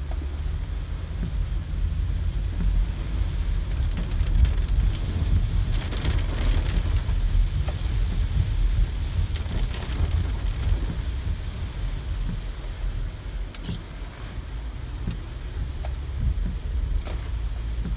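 A car driving through heavy rain on flooded streets, heard from inside the cabin: a steady low rumble of the car, with rain and road water hissing over it and swelling around the middle.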